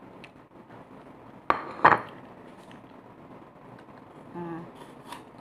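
A bite into a crisp apple: a sharp crack about a second and a half in, then a louder crunch as the piece breaks off. This is followed by a short closed-mouth hum and crisp chewing clicks near the end.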